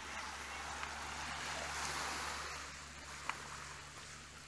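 Small, gentle waves washing up over a pebble beach: a hiss that swells a little past halfway and then eases off. A single sharp click a little after three seconds.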